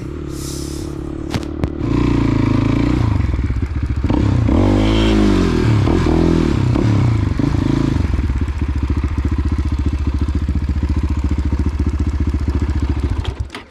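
Motorcycle engine running under way. It gets louder about two seconds in, its pitch rises and falls several times through the middle as it is revved, then holds steady before cutting off suddenly near the end.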